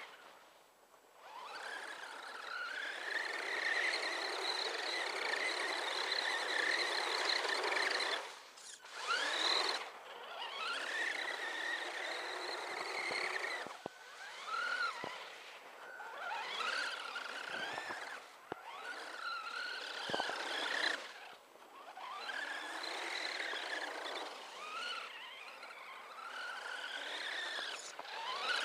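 HSP Brontosaurus 1/10 radio-controlled monster truck's electric motor and drivetrain whining, the pitch rising and falling with the throttle in a series of runs with brief breaks. A few sharp clicks come in the middle.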